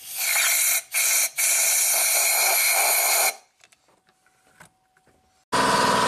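Compressed-air blowgun blasting into a flooded ignition-coil well to blow the pooled water out: a loud hiss for about three seconds, broken twice for an instant near the start, then it stops. Near the end a steady motor hum comes in.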